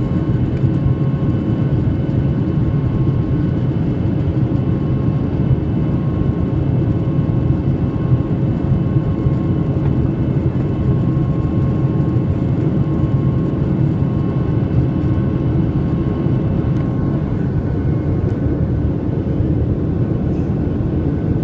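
Steady drone inside a jet airliner's cabin during the climb after takeoff: engine noise and rushing air, with faint steady whining tones above it.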